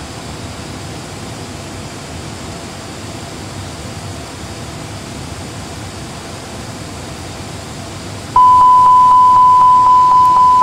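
A320 flight-simulator cockpit with a steady rushing background noise. About eight seconds in, a loud warning tone starts suddenly and holds at one pitch. It is the cockpit aural alert for the emergency electrical configuration that follows the loss of both engines.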